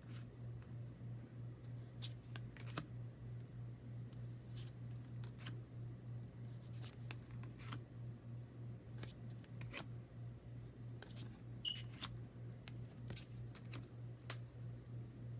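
Tarot cards and their packaging being handled: scattered light clicks and soft taps over a steady low hum.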